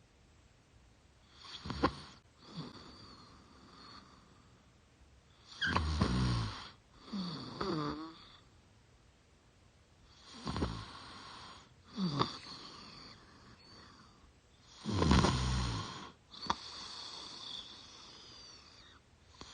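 A young woman snoring in her sleep through an open mouth: four loud snores about four to five seconds apart, each followed a second or so later by a softer outbreath.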